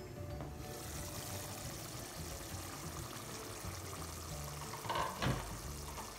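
Lamb curry simmering in a pot, a steady bubbling hiss that grows louder about half a second in, as the glass lid is lifted off. Two brief louder sounds come about five seconds in.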